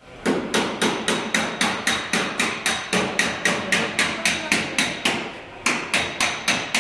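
Hammer striking metal in quick, even blows, about four a second, each blow ringing briefly. The blows stop for a moment about five seconds in, then resume.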